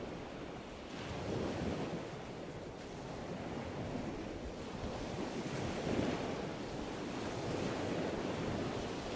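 A low rushing noise that swells and fades every few seconds, like surf or wind.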